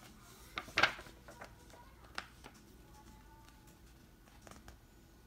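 A picture book's paper page being turned: a brief rustle about a second in, followed by a few light taps and clicks as the book is handled.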